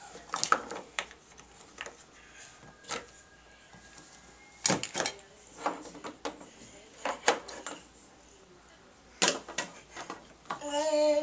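Plastic toy kitchen dishes, cups and pans being handled: scattered light clacks and knocks of plastic on plastic. A short voice sound comes near the end.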